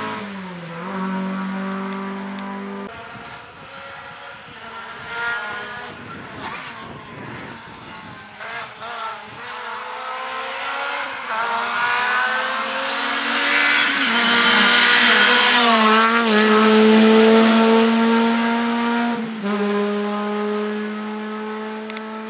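Rally cars driven hard on a stage. One fades away over the first few seconds. Then an engine note climbs again and again through gear changes as a car approaches, loudest about 15 to 17 seconds in, then falls away.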